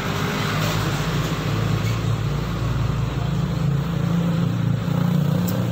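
A motor vehicle's engine running steadily: a low hum with a hiss of road noise over it, growing slightly louder.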